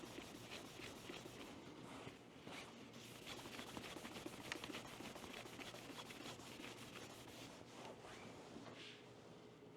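Faint rubbing and scratching of a cloth wiping surfaces with isopropyl alcohol to clean them before mounting tape is applied, with scattered small ticks.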